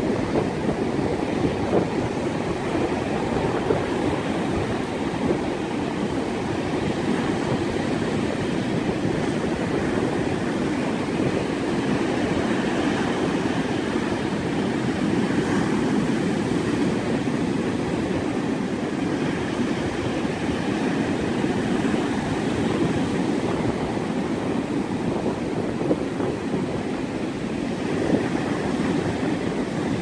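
Atlantic surf breaking and washing up a sandy beach: a steady, unbroken rush of noise in which no single wave crash stands out.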